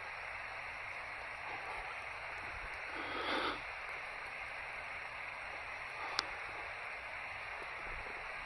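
Steady hiss of rain, with a brief louder rustle about three seconds in and a single sharp click about six seconds in.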